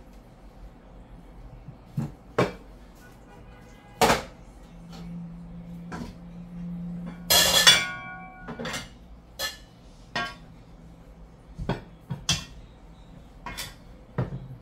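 Metal cookware and utensils knocking and clinking while food is dished onto plates: a dozen or so separate sharp knocks, and a louder metallic clatter of a pot lid about seven seconds in that rings briefly.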